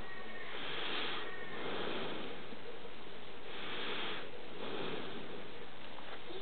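German shepherd sniffing and snuffling at a small terrier puppy, a series of noisy sniffs roughly a second apart.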